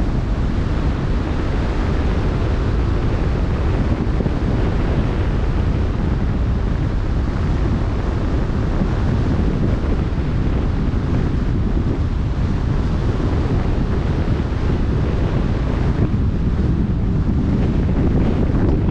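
Steady wind buffeting the microphone over the rush of choppy open-sea water, a low rumbling roar with no breaks.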